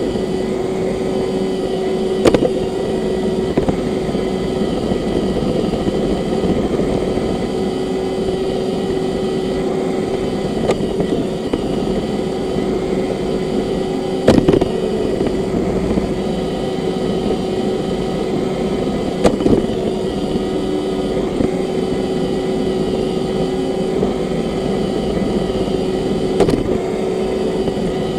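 Roomba robot vacuum running: a steady motor and brush hum with a constant whine, and a few short knocks along the way.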